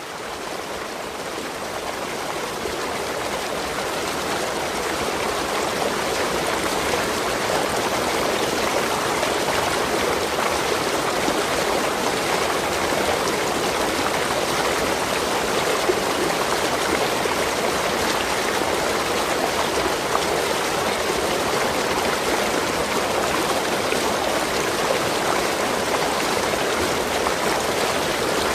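Waterfall: water falling and rushing in a steady, even wash, fading in over the first few seconds and then holding level.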